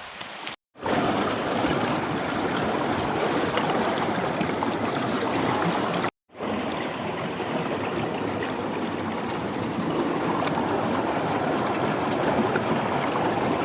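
Steady rush of flowing water, like a stream or rapids, cutting out briefly just under a second in and again about six seconds in.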